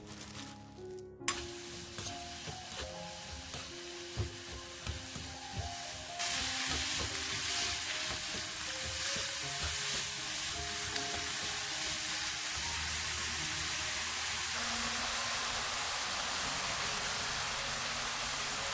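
Julienned radish frying in oil in a frying pan: a steady sizzle sets in about six seconds in and grows louder near the end. Before it come scattered light taps and rustles as the radish strips are tossed by hand. Background music throughout.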